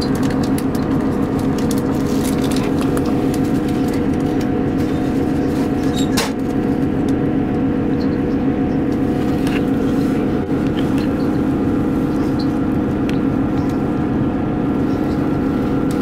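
Moving train heard from inside a carriage: a steady rumble with a constant hum, and scattered sharp clicks and knocks, the loudest about six seconds in.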